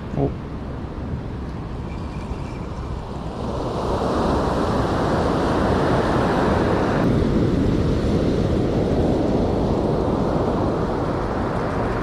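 Sea surf breaking and washing up the beach, with wind buffeting the microphone; a wave swells louder about four seconds in.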